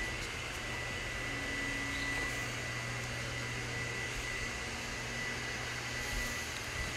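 Steady indoor background hum and hiss, with a faint steady high-pitched whine, typical of a running fan or air conditioner.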